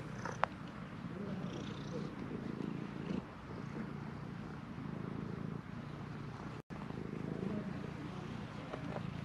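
A cat purring steadily while being stroked, close to the microphone. A sharp click sounds near the start, and the sound cuts out for an instant about two-thirds of the way through.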